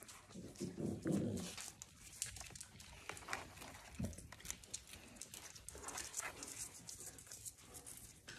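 Puppies playing and chewing at boots and trouser legs. A low puppy growl lasts about a second, starting about half a second in, with a shorter low growl around four seconds. Between them are rustling cloth and small scratching clicks.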